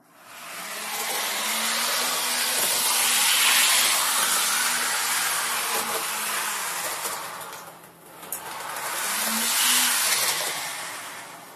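Heljan Class 86 model electric locomotive under DCC control running flat out at its decoder's default top speed, far faster than the intended scale 100 mph: a loud rushing hiss of wheels and motor that swells, dips about eight seconds in, swells again as it passes and fades near the end.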